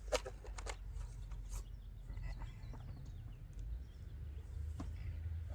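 A few faint clicks and knocks from a pole saw being handled, over a steady low outdoor rumble.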